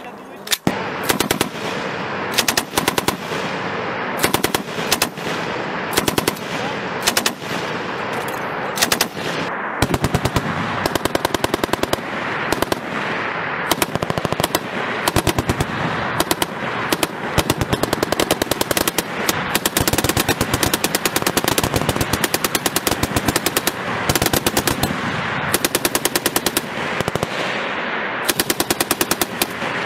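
Several M240 belt-fed machine guns firing bursts along a firing line. Short and long bursts from different guns overlap, so the rapid shots run almost without a break, with only brief pauses.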